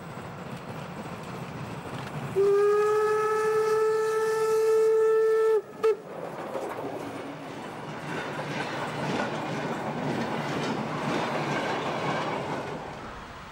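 Class 52 steam locomotive 52 8039 sounds its steam whistle in one long blast of about three seconds, then a short toot. It then runs close past with its freight train, and the rumble and clatter of the rolling locomotive and goods wagons swells and fades.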